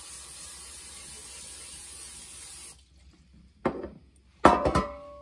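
Aerosol can of butter-flavour cooking spray hissing steadily for nearly three seconds as it coats a metal loaf pan, then stopping abruptly. Two knocks of the metal pan follow near the end, the second with a short ring.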